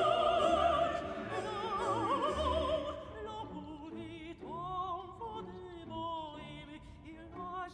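Background music with operatic singing: held notes waver in a wide vibrato. It turns softer about three seconds in.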